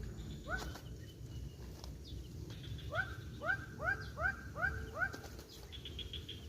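A bird calling: one rising whistled note, then a quick run of six rising notes a few seconds later, over a low outdoor rumble.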